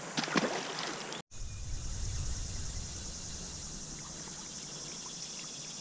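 A few small splashes as a released fish drops back into a shallow creek, then, after an abrupt cut about a second in, the steady wash of the creek's flowing water with a low rumble underneath.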